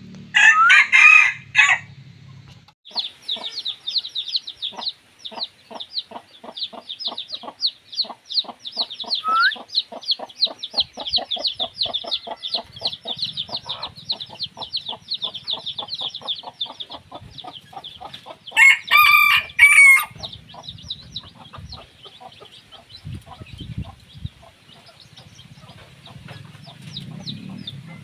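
Decoy junglefowl roosters crowing: a short crow right at the start and another about two-thirds of the way through. Between the crows comes a long run of rapid, high, chirping strokes, about four or five a second.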